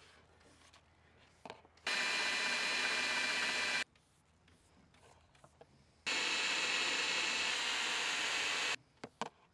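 Cordless power drill running in two steady runs of about two and three seconds, each starting and stopping abruptly, with a few short blips near the end: drilling the hole for a cable deck gland.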